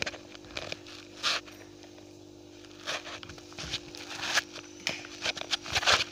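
Short rustling and scraping handling noises, several scattered scrapes that grow louder near the end, over a steady low hum.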